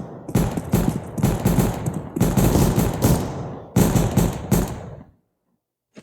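Video game gunfire: rapid automatic fire in several bursts, cutting off suddenly about five seconds in.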